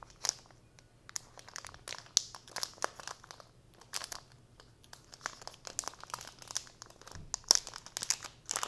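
Thin plastic packaging bags crinkling and crackling in irregular handfuls as a pen is worked out of them.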